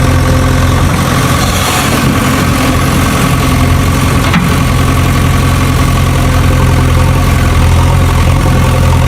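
Engine idling steadily with a low, even drone, and a single short click about four seconds in.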